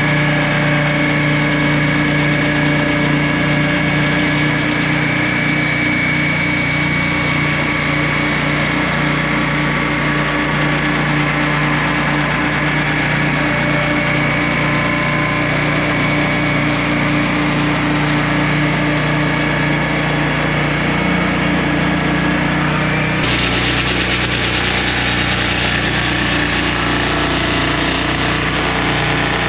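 Engine of a portable swingblade circular sawmill running steadily, with a steady pitched whine over it. A few seconds before the end the sound changes abruptly.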